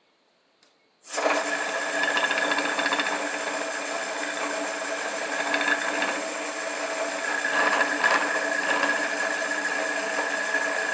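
Shopsmith's motor switched on about a second in and running steadily at speed, with a steady hum and whine, set up for drilling.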